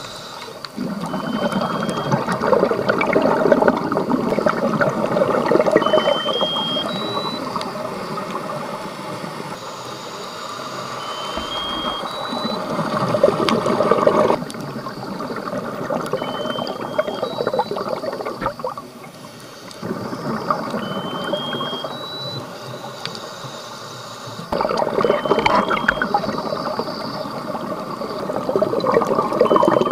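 Unidentified electronic underwater chirp: a short tone that steps up in pitch two or three times within about a second, repeating about every four and a half seconds, seven times. Over it, the louder rushing bubbles of a scuba diver's exhaled breath come in long swells.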